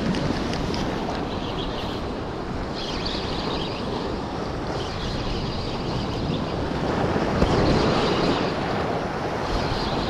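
Ocean surf washing against the rocks, with wind buffeting the microphone. A wave surges louder about seven seconds in.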